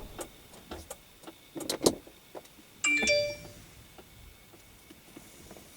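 A few faint clicks and knocks, then about three seconds in a short ringing chime of several pitches that dies away within half a second.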